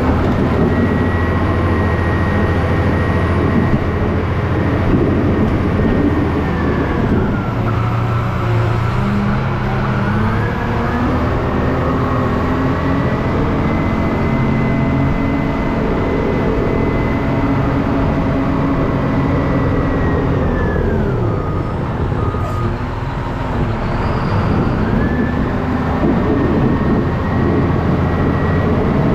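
A large engine running steadily, with a high whine that follows its revs. Twice the revs fall away and climb back up a few seconds later.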